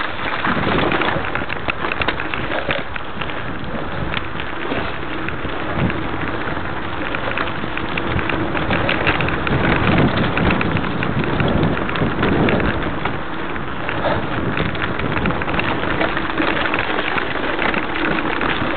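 Mountain bike riding fast down a rough, rocky trail: a steady dense noise of the tyres rolling and crunching over grit and stones, with many small clatters as the bike and camera shake over bumps.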